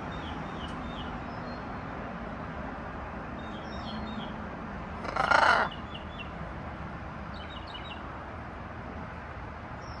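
Wild songbirds chirping in their evening chorus: short high falling chirps in little runs of three or four, repeated several times over steady background noise. About five seconds in comes one loud, harsh caw-like call from a larger bird.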